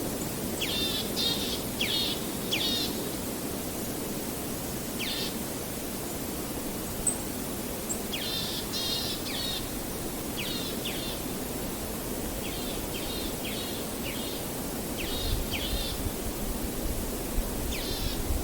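Forest ambience: a steady wash of wind in the leaves with birds chirping in short repeated phrases of quick falling notes, in clusters every few seconds.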